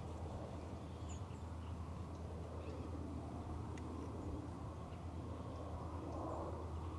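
Quiet outdoor background: a steady low rumble with a few faint, short, high chirps.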